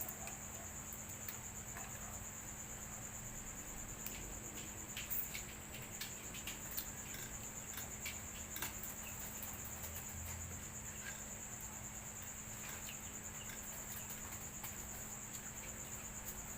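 Crickets chirring steadily and high-pitched, with scattered small clicks and cracks from crab being eaten by hand.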